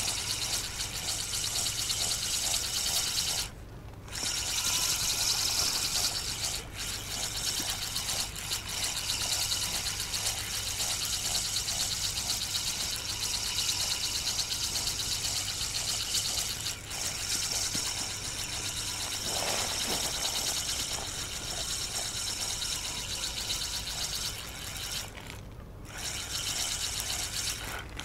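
Spinning reel being cranked steadily, its gears whirring and clicking as line is wound in on a hooked small fish. The cranking pauses briefly about three and a half seconds in and again near the end.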